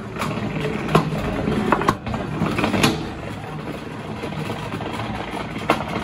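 Small plastic combat robots' spinning weapon motors whirring steadily, with several sharp hits as the plastic blades strike the opponent and the arena.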